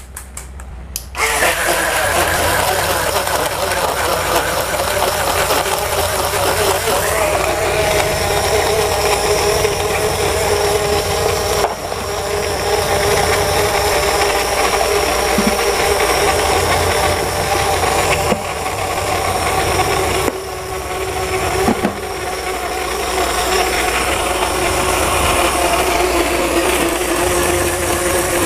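Portable blender's motor running, its blade churning frozen banana chunks with milk, starting about a second in; the whine slowly sinks in pitch and dips briefly a few times as the blade labours against the frozen fruit.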